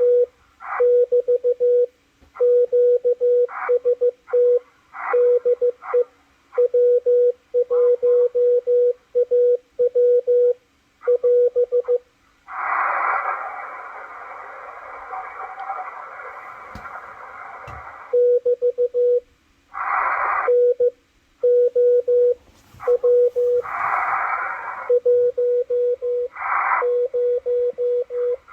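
Morse code from W1AW received on a Malachite DSP SDR receiver: a steady beat tone keyed on and off in dots and dashes. It is broken by bursts of hiss, the longest lasting about five seconds near the middle and shorter ones later.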